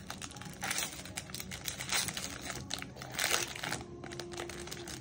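Foil wrapper of a hockey card pack being torn open and crinkled by hand, with three louder bursts of crinkling.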